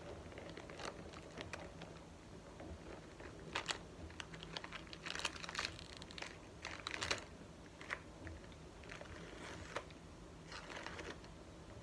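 Rummaging inside a quilted handbag: soft, irregular crinkling of chocolate-bar wrappers and light clicks from the bag's metal chain strap, in several short flurries.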